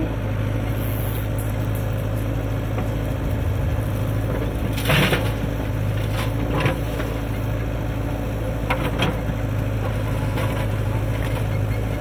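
JCB 3DX backhoe loader's diesel engine running steadily under load while the backhoe arm digs and swings, with a brief rush of soil dumped from the bucket into a tractor trolley about five seconds in and a few smaller knocks later.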